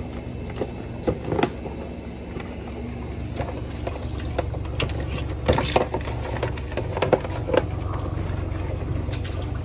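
Steady low motor hum under scattered clicks and knocks, with a short hissing burst about five and a half seconds in.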